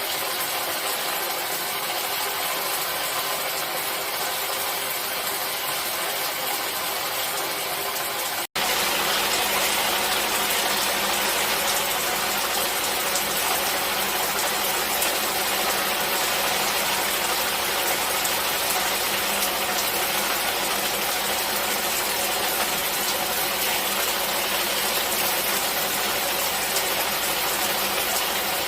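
Steady hiss of falling water, rain or a waterfall, with a split-second gap about a third of the way through, after which it comes back slightly louder and with more low rumble.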